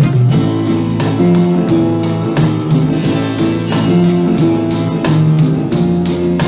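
Instrumental film-score music with held low notes over a steady beat of about three strikes a second.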